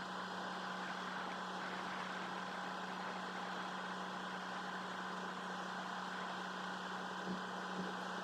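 Steady machine hum with a constant low tone, unchanging throughout, with two faint ticks near the end.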